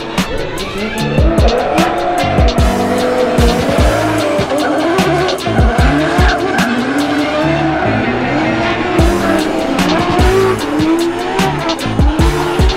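Nissan S15 drift car drifting: the engine revs rise and fall again and again as the driver works the throttle, with tyre squeal, under background music with a beat.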